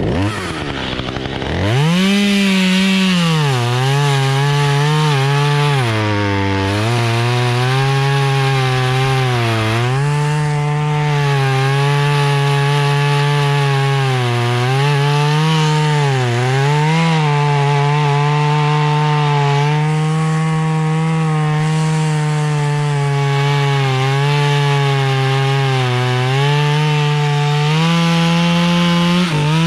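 Two-stroke chainsaw revving up to full throttle and cutting through ash wood; its engine pitch sags several times as the chain bogs in the cut and picks back up in between.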